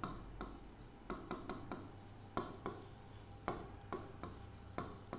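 Stylus writing on an interactive display screen: irregular soft taps and short scratches as each stroke of the handwriting is made, several a second, over a faint low hum.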